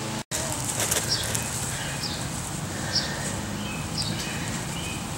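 A bird calling a short, high, slightly falling note about once a second, over a steady outdoor background hiss.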